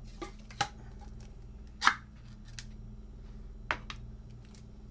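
Ring-pull lid of a condensed soup can being opened: a few short metallic clicks and scrapes, the sharpest about two seconds in, over a faint steady hum.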